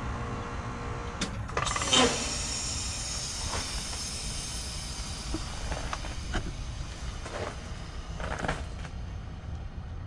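Lennox Merit 14HPX heat pump outdoor unit running in heat mode just after a defrost cycle, steaming off its coil, with a steady running noise from the fan and compressor. A louder hiss-like burst comes about two seconds in, and a few smaller sharp noises follow.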